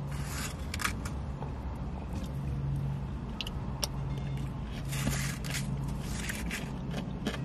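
Low steady hum of a running car heard from inside the cabin, with a few short scrapes of a spoon in a paper cup of shaved ice.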